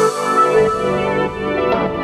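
Background music with held chords; a deep bass comes in about half a second in.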